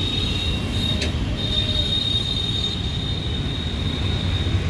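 A steady high-pitched whine over a low engine rumble, with a single sharp click about a second in.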